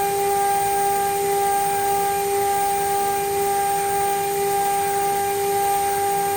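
3.5 kW CNC router spindle running at speed with a steady, high whine, a single unchanging pitch with a fainter tone an octave above it.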